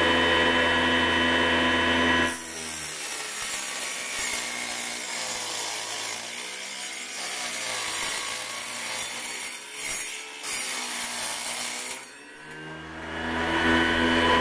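Mini table saw driven by an 18-volt screwdriver motor through a belt. The blade first spins freely with a steady whine. From about two seconds in it cuts aluminium: a harsh grinding rasp while the motor drags down under load, its pitch wavering. Near the end the cut clears and the motor whines back up to full speed.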